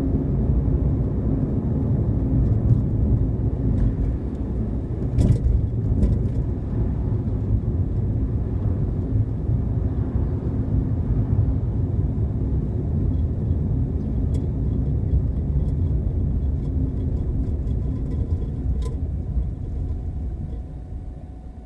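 A car driving, with steady low road and engine rumble and a couple of light knocks about five and six seconds in; the rumble fades near the end.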